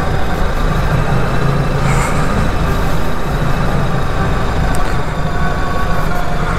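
BMW R1300 GS Adventure's boxer-twin engine running at low speed in second gear, a steady rumble mixed with wind noise on the microphone.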